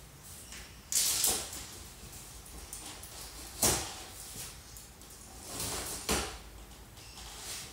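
Knife slitting the tape on a large cardboard box, with the cardboard scraping and rustling as it is cut and handled: several short scraping strokes and a sharp knock about three and a half seconds in.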